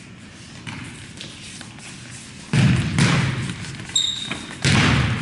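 Futsal ball being kicked and thudding on a gymnasium floor amid scuffling sneakers, with loud, sudden bursts of play about halfway through and again near the end. A short, high sneaker squeak on the floor comes about four seconds in.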